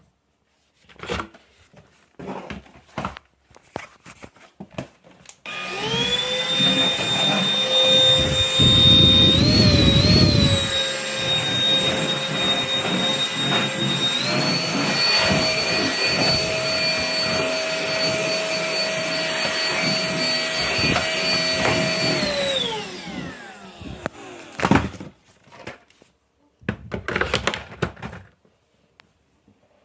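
Cordless stick vacuum switched on about five seconds in, its motor spinning up to a steady whine, with a loud rough rumble from the brush head on the floor for a couple of seconds. About halfway it steps up to a higher pitch on boost power, then is switched off and winds down. Handling clicks and knocks before and after.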